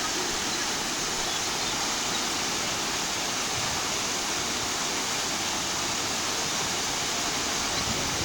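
Steady rush of water from a waterfall, an even, unbroken hiss.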